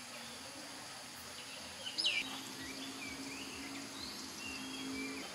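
Outdoor ambience of a steady high insect drone with birds calling in short chirps, the loudest about two seconds in. A low steady hum sounds through the second half.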